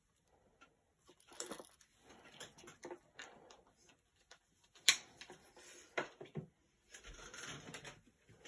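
Handling noises from knives and a leather knife sheath: rustling and scraping with scattered clicks, the sharpest about five seconds in and another about a second later, then a longer rustle near the end.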